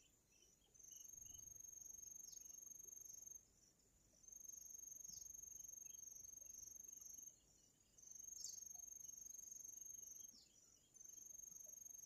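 A high-pitched insect trill, steady within each bout, in bouts of about three seconds with short pauses between, and a few faint short downward chirps.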